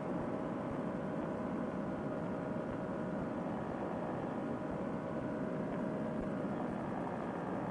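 Steady drone of a paramotor trike's engine and propeller in cruising flight, heard through a Bluetooth headset microphone that cuts off the high end.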